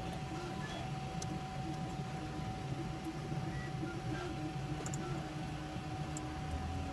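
Steady fan hum with a constant mid-pitched tone, and a few faint light clicks from small parts being handled.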